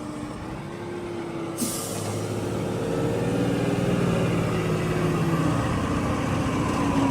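Mahindra tractor's diesel engine running and coming closer, growing gradually louder with a slight rise in pitch. A short hiss about a second and a half in.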